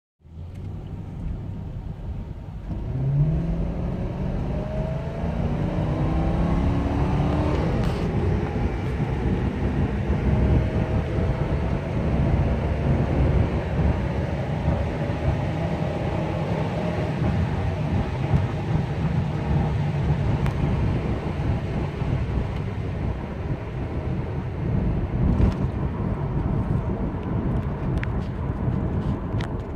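Ford Crown Victoria's 4.6-litre V8 under hard acceleration, heard from inside the cabin: the engine note climbs steadily for several seconds, falls back about eight seconds in as the automatic shifts up, then settles into steady engine and road noise at speed.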